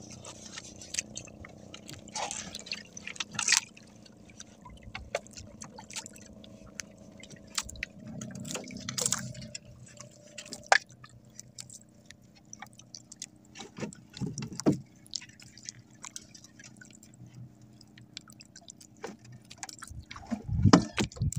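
Water lapping softly against a small wooden outrigger boat, with scattered clicks, rustles and a few sharper knocks as fishing line and a bait hook are handled.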